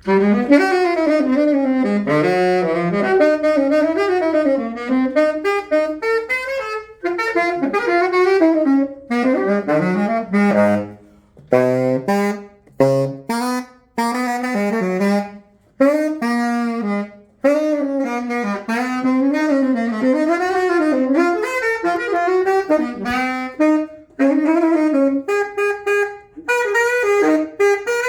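Yamaha YTS-52 tenor saxophone played solo in quick, flowing jazz-style runs up and down the range, with brief pauses for breath: a play test of the freshly overhauled horn.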